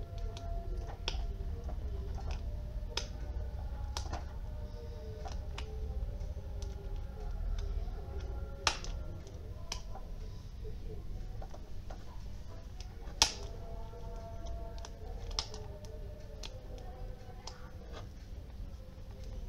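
Small screwdriver clicking and scraping on screws and a clear plastic project box while a PIR sensor module is fastened in. The clicks are irregular, with two sharper, louder ones near the middle, over a steady low hum.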